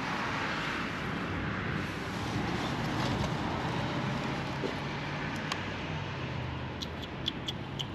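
Steady outdoor background noise with a faint low hum. A few light plastic clicks sound in the last few seconds as the camera and liftgate trim panel are handled.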